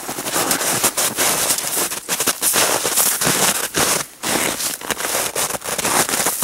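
Footsteps crunching through snow and dry grass and twigs: a dense, continuous crackle.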